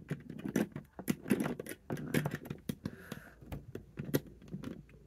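Lego bricks clicking and rattling as pieces are pressed and snapped into place on a model, a run of quick, irregular plastic clicks and taps.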